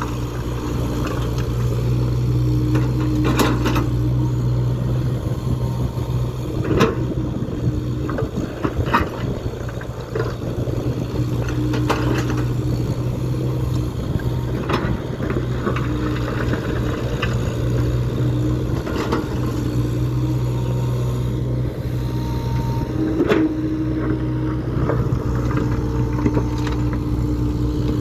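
Kobelco excavator's diesel engine running steadily under load, with a higher hum that comes and goes as the boom and bucket move. The bucket's steel teeth knock and scrape on broken stone every few seconds.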